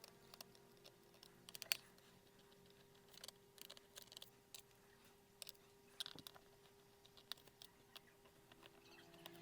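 Faint, scattered small clicks and ticks of a screwdriver working the screws out of a laptop's plastic bottom cover, with the sharpest clicks about 1.7 s and 6 s in. A faint steady hum runs underneath.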